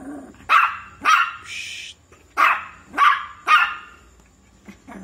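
Shih Tzu puppy barking: five short barks in two bursts, two and then three, with a brief higher-pitched cry between them.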